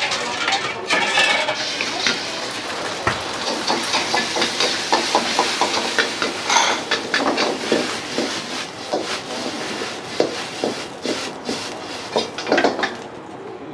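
Metal wok ladle clanking and scraping rapidly against a wok as food is stir-fried over a high gas flame, over a steady rush of burner noise and frying. A brief louder hiss comes about halfway through.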